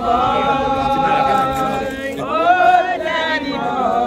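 A group of people singing together in long held notes.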